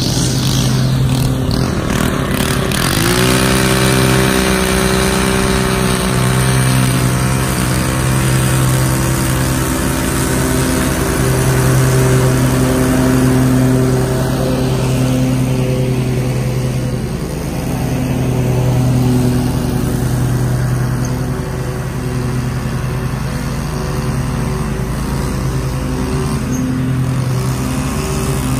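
Walk-behind commercial lawn mower engine running steadily under mowing load. A higher-pitched string trimmer engine starts up and revs about three seconds in, then runs alongside it.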